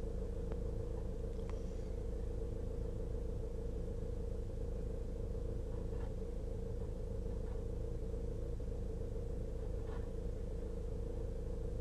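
An engine idling steadily, heard from inside a vehicle's cab, with a few faint knocks now and then.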